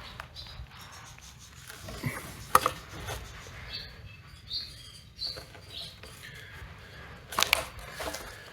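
Light knocks from the old wooden board being handled, one about two and a half seconds in and another near the end. A few faint, short, high chirps come in between.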